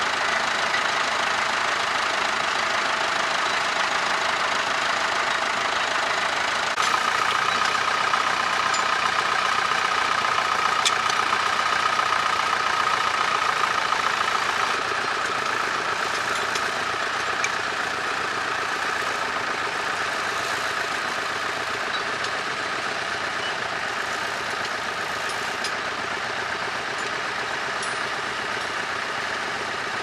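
Vintage tractor engines running steadily while pulling a plough through the field. A steady tone joins the engine noise about seven seconds in and fades away after about fifteen seconds.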